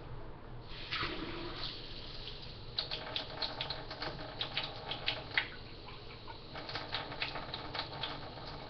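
Kitchen faucet running at a low flow into a clear cup, water trickling and splashing with many small drips as it fills, for measuring 2/3 cup of water.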